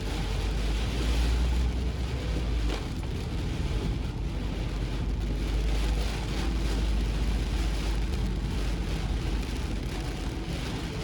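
Heavy, wind-driven typhoon rain hissing steadily, over a constant low rumble of a vehicle on the road.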